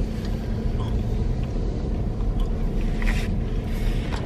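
Steady low rumble of a car heard from inside its cabin, with a faint steady hum running through it.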